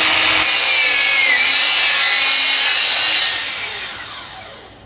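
DeWalt DCS361 7-1/4-inch cordless sliding compound miter saw running and cutting through plywood, its pitch dipping briefly under load about a second in. Around three seconds in the trigger is released and the blade spins down, fading away.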